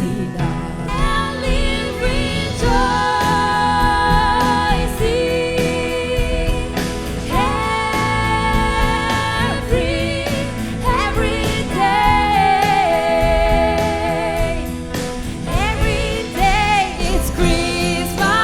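Live band playing a Christmas gospel medley: a female lead voice sings long held, wavering notes over keyboards, bass and drums.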